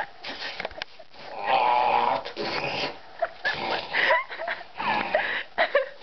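A man making creepy, goat-like animal noises with his voice. A long raspy bleat comes about a second and a half in, followed by a string of short squeaky sounds that rise in pitch.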